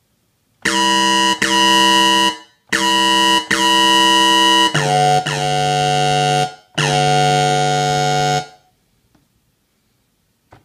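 Raspberry Pi 3 synthesizer playing a sound-font patch through Fluidsynth, triggered from a mini MIDI keyboard. It sounds seven held notes, each lasting about half a second to a second and a half, with the last three lower than the first four, and stops about two seconds before the end.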